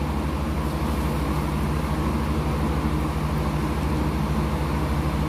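A steady low mechanical hum with a fast, even pulse, unchanging throughout.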